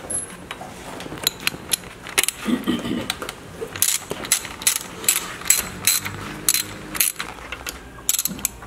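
Hand ratchet with socket and extension turning a bolt, clicking in a steady run of short strokes, about three a second.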